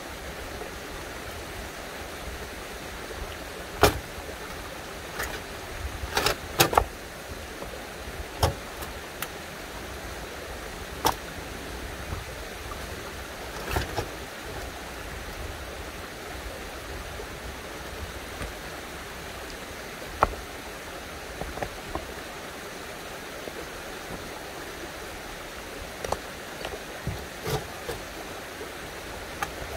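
Stones knocking and clacking against one another as rocks are set by hand into a dry-stone wall: a dozen or so sharp, irregular knocks, the loudest about four seconds in and a cluster around six to seven seconds in. Under them is a steady rush of running spring water.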